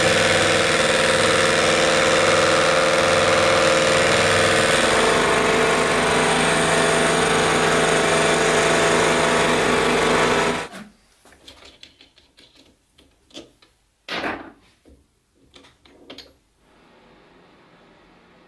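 Metal lathe running steadily while a bolt turning in the chuck cuts worm-wheel teeth into a brass blank. It stops suddenly about ten and a half seconds in, followed by a few light clicks and knocks as the brass part is handled.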